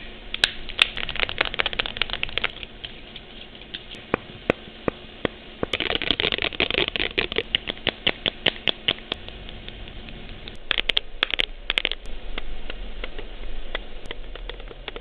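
Long fingernails tapping rapidly on hard plastic, a Game Boy Advance SP handheld at first, in three bursts of quick clicks with short pauses between. Recorded through an old digital camera's built-in microphone, so the sound is dull, with nothing above about 4 kHz.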